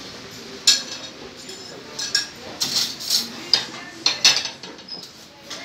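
Dishes and cutlery clinking: a string of about eight sharp clinks, the first coming about a second in and the loudest near the end of the run.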